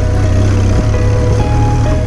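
Background music with held, changing notes, over the steady running of a motorcycle engine underneath.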